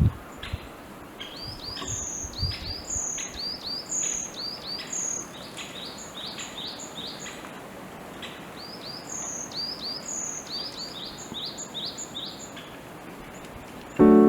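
Small songbirds calling: a steady stream of short, hooked chirps repeated several times a second, with a few soft low knocks in the first seconds. Music comes in right at the end.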